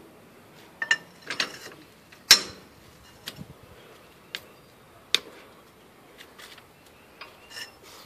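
Irregular sharp metallic clicks and clanks from a jack being worked with a long handle to lift a tractor, the loudest a little over two seconds in.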